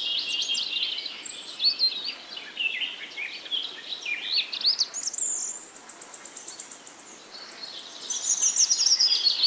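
Songbirds chirping, with many quick high notes and short falling trills. About halfway through, the song thins to a faint, fast, high ticking trill, then a loud burst of chirping starts again near the end.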